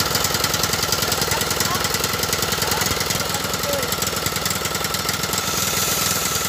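Small engine running steadily at idle with an even firing rhythm and a steady whine, most likely the Husqvarna mower's engine.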